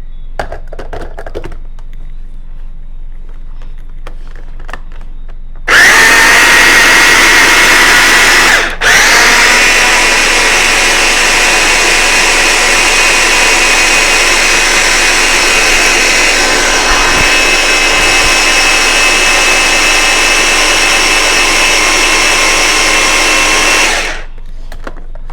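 Small household blender motor switched on about six seconds in, spinning up, cutting out for an instant, then running steadily for about fifteen seconds before switching off. It is blending seasoning with carrot in it, run longer than the other batches to break down the carrot.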